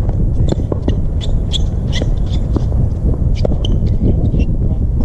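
Tennis rally: a ball struck on a serve right at the start, then further sharp ball hits and bounces. Short high chirps are scattered through the rally, over a steady low rumble.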